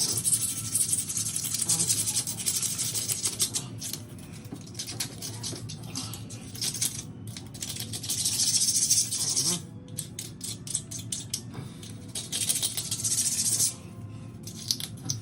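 Bathroom floor being scrubbed clean around the toilet flange: spells of quick rasping strokes, loudest at the start, about eight seconds in and again near the end, with lighter scratching between.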